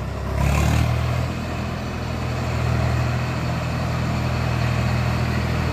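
Tractor diesel engine running steadily with a low, even hum as it pulls a trolley loaded with sugarcane. There is a brief hiss about half a second in, when the engine gets louder.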